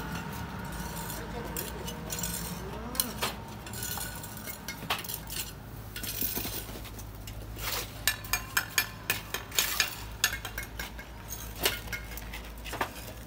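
Bricklayers' steel trowels scraping mortar and tapping on bricks: irregular sharp metallic clinks, a quick flurry of them in the second half, over a steady low hum.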